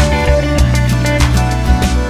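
Background music with guitar over a steady percussive beat.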